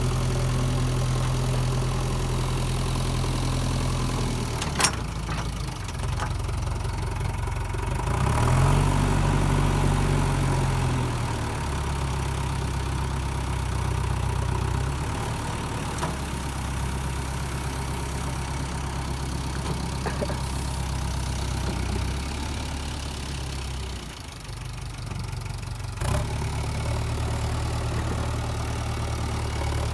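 JCB 3DX backhoe loader's diesel engine running, revving up and settling back about nine seconds in, with small shifts in speed after. A sharp click about five seconds in and another near the end.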